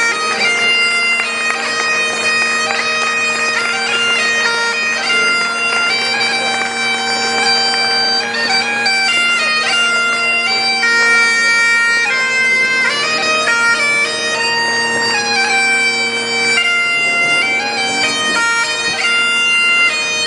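Great Highland bagpipe played solo and loud: steady drones sound under a chanter melody of held notes that step from pitch to pitch without a break.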